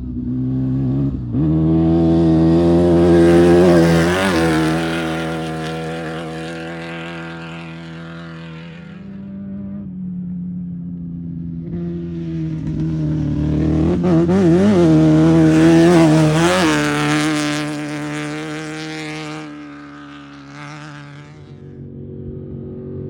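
Off-road race vehicles passing one after another: two separate passes, each engine swelling up, revving with its pitch wavering near the loudest point, then fading away.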